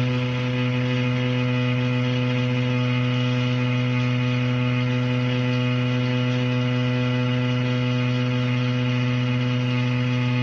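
Running shower plumbing giving off a loud, steady, single-pitched droning hum with a buzzy edge that holds without change.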